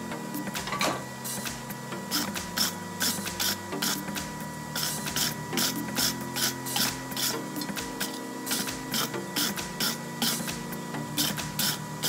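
Blacksmith's hand hammer striking red-hot steel on an anvil in a quick run of blows, about two to three a second, over a steady hum.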